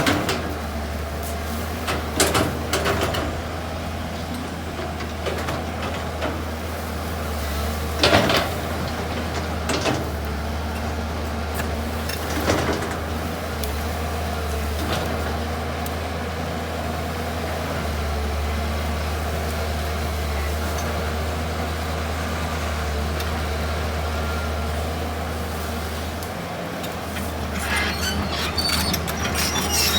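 Excavator's diesel engine running with a steady low drone, with a few sharp knocks and cracks as it works, several of them near the end.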